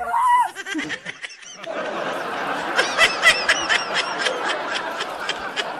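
Water splashing and churning as a man goes into a muddy pond. From about a second and a half in, a run of short, high-pitched snickering laughs plays over it.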